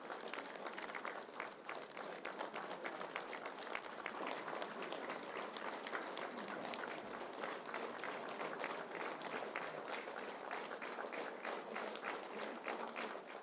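A roomful of people applauding steadily, many hands clapping in a dense, overlapping patter; it cuts off suddenly at the end.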